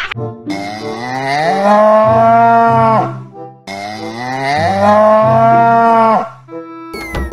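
Cow mooing sound effect, one long rising moo played twice in identical copies, over soft background music.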